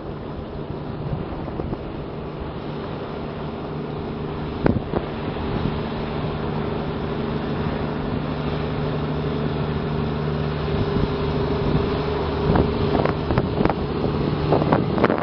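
A fishing boat's engine running as a steady hum that grows slowly louder as the boat comes closer, with wind blowing on the microphone. Wind gusts on the microphone grow stronger near the end.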